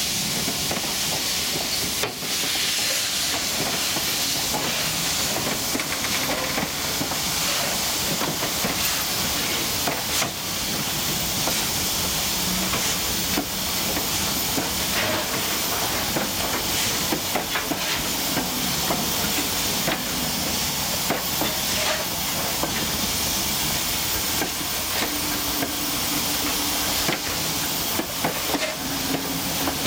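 SNCB Type 64 steam locomotive hissing steady steam as it slowly draws its train of coaches along. Scattered clicks and knocks come from the rolling stock on the track.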